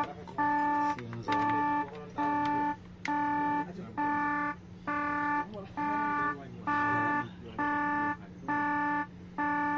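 Volvo FMX truck's cab warning buzzer beeping over and over, about one even half-second beep a second, with the ignition on and an engine fault active. A steady low hum lies underneath.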